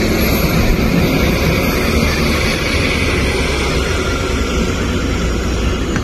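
Front loader's diesel engine running under load as it pushes snow, a steady heavy rumble.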